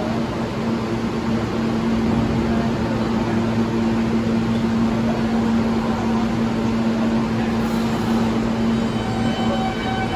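R160 subway train running through the station, a loud steady rumble with a constant low hum. High wheel squeal begins near the end.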